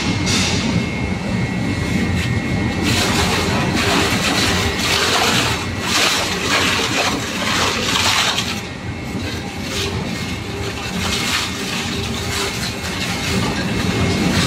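Twin-shaft tyre shredder running, its hooked cutter shafts tearing tyres with a steady machine rumble and many sharp cracks and snaps.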